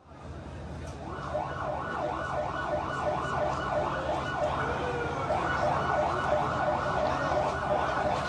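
Emergency vehicle siren sounding in a fast, repeated up-and-down yelp, over a steady low rumble.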